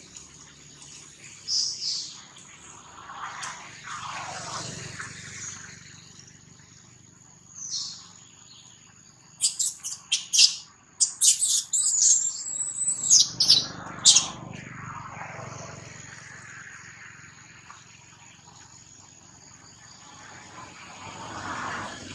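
Birds calling: a few scattered high chirps, then a loud run of quick, high, arching chirps about ten seconds in that lasts some four seconds.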